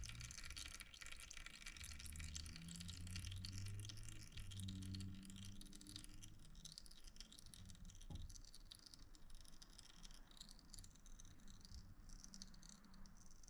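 Near silence: faint room tone with a low hum and a single light click about eight seconds in.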